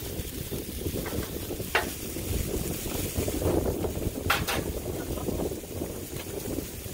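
Strong wind buffeting the microphone in a rough, uneven rumble, over the steady sizzle of meat and peppers frying on a hot Blackstone griddle. A few light, sharp knocks come through, the loudest about four seconds in.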